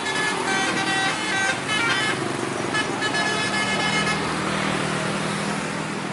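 Bus telolet horn playing a quick run of musical notes, which stops a little over halfway through, leaving a steady engine hum and traffic noise.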